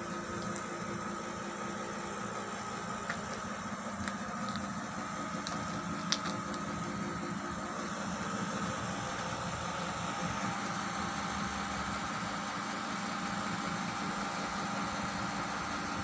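Steady mechanical hum of a running machine, holding several fixed tones, with a few faint clicks, the sharpest about six seconds in; it grows slightly louder toward the end.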